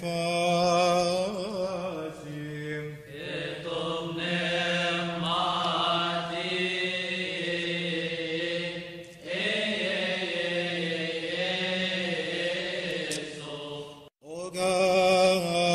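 A male voice chanting a slow, ornamented Coptic liturgical hymn, the melody winding up and down over long held notes, with brief breaks about three, nine and fourteen seconds in.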